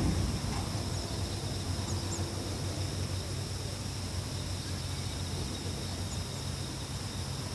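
Steady high-pitched insect chorus, held at one pitch, over a steady low hum.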